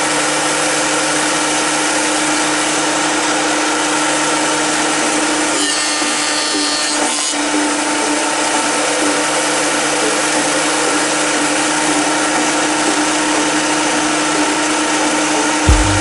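Thickness planer running steadily: a dense, even cutterhead-and-motor noise over a constant hum, the high hiss brightening briefly about six seconds in.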